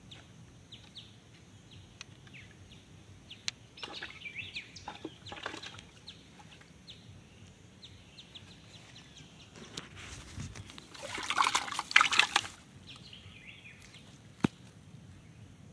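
Small birds chirping in short calls throughout, with a loud burst of splashing water about ten to twelve seconds in, then a single sharp click near the end.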